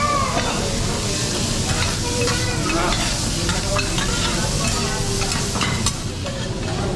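Food sizzling on a hot teppanyaki griddle, with scattered clicks and scrapes of metal spatulas working on the plate.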